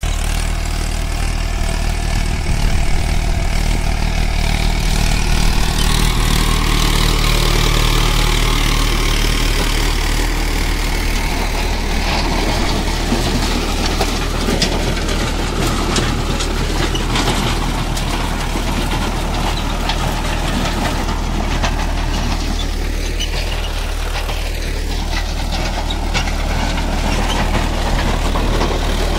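Mahindra Arjun 555 DI tractor's four-cylinder diesel engine running steadily under load while it drives a Shaktiman rotavator, whose spinning blades churn and break up dry soil clods.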